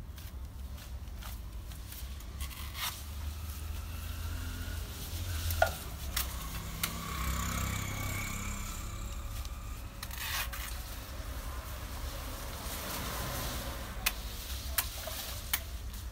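Rustling and a series of sharp knocks as a large knife hacks into the stalk of an elephant foot yam plant, over a steady low rumble. The loudest knock comes about five and a half seconds in, and three quicker ones come near the end.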